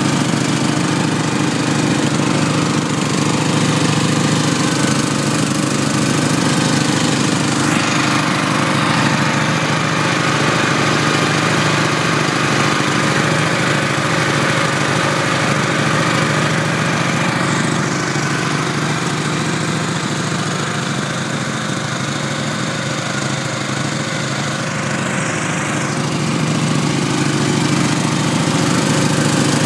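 Small petrol engine of a converted Great Dane mower running steadily, its pitch holding even throughout.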